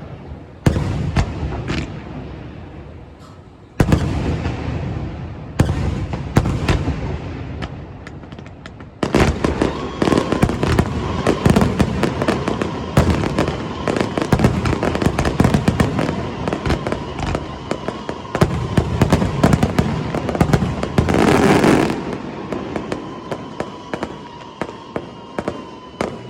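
Aerial firework shells bursting: a few single booms spaced a couple of seconds apart, then from about nine seconds in a dense, rapid barrage of bursts lasting some thirteen seconds, tailing off into scattered crackles near the end.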